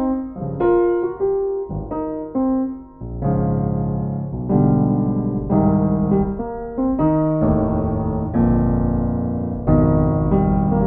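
Background piano music, chords and a melody, growing fuller about three seconds in.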